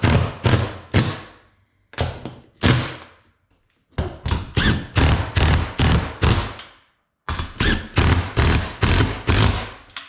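Repeated heavy thuds, about three or four a second, each dying away quickly. They come in runs broken by pauses of up to a second, as lag bolts are fastened to fix a TV wall-mount bracket to the wall.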